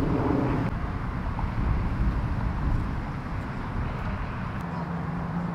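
Steady outdoor background noise with a low rumble, easing a little about a second in.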